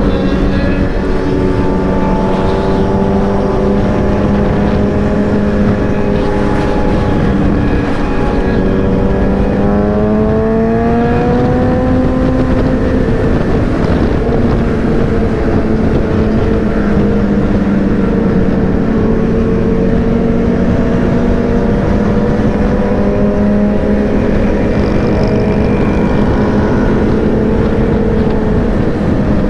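Sportbike engine running at highway speed, heard from the rider's own bike, with heavy wind rush on the microphone. The revs climb about ten seconds in as it accelerates, then hold steady.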